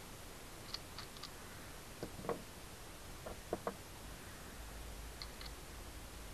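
Faint, scattered clicks and a few light knocks of small metal parts being handled while fitting a new bicycle pedal to the crank arm.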